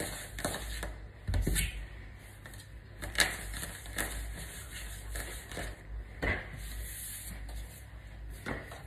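Hands rounding pieces of tortilla dough into balls on a countertop: soft rubbing with scattered light knocks, a louder thud about a second and a half in and a sharp tap about three seconds in.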